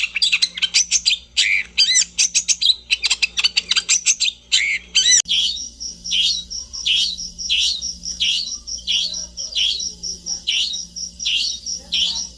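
Long-tailed shrike (cendet) singing a fast, varied run of chirps. About five seconds in, it gives way to a regular pattern of falling notes, roughly one and a half a second, over a steady high pulsing trill.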